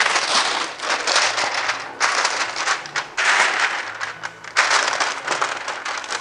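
A sheet of dark car window tint film being handled and crinkled by hand, giving an irregular plastic crackling rustle with a couple of short breaks.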